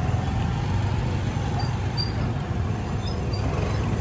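Steady low engine rumble of motorcycles and scooters riding up a steel ramp onto a ferry.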